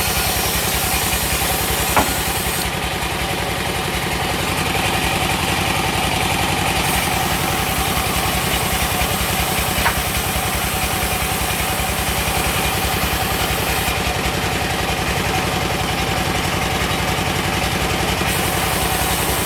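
Sawmill machinery running steadily, an engine driving the saw with a constant drone. Two single sharp knocks break in, one about two seconds in and one about halfway through.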